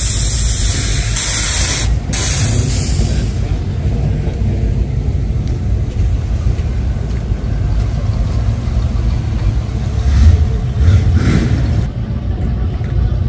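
Classic Chevy truck engines rumbling steadily, with a loud hiss over the first few seconds that breaks off briefly about two seconds in. About ten seconds in, the engine sound swells twice.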